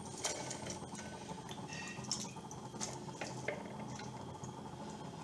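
Freshly washed, wet vegetable pieces tipped from a bowl into a small metal uruli, landing with scattered light clatters and the drip of water.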